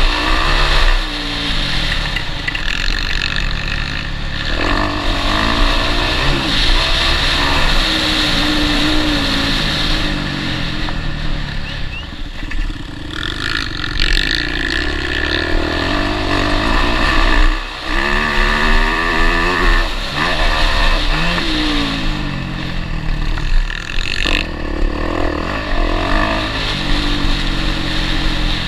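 A motocross bike's engine heard from on board the bike, revving up and down again and again as the rider works the throttle and gears, with a few brief drops where the throttle is shut off.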